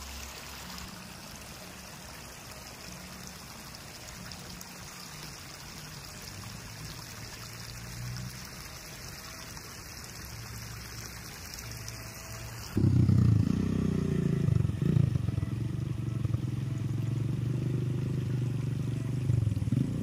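Water flowing steadily along a lined rice-field irrigation channel, an even rushing trickle. About thirteen seconds in it gives way abruptly to a louder, low sound.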